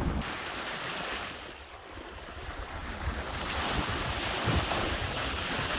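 Wind buffeting the microphone over the rush of the sea aboard a small sailboat under way. The rush eases a little about two seconds in, then builds again.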